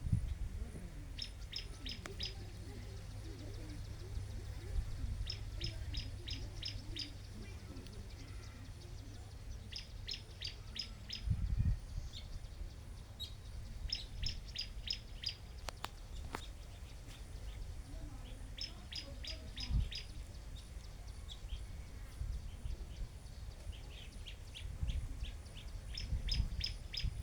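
A bird calling: about seven runs of quick, repeated high chirps, each run lasting about a second and coming every few seconds, over a low rumble.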